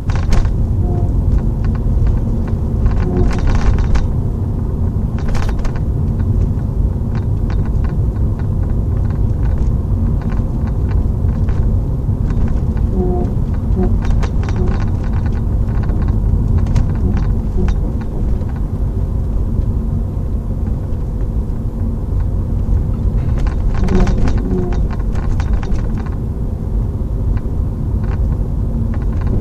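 Steady road and engine rumble inside a moving Renault Mégane, heard from the back seat, with short creaks and rattles now and then from the rear passenger side. The creak is an undiagnosed fault: the suspension has been checked and looks fine.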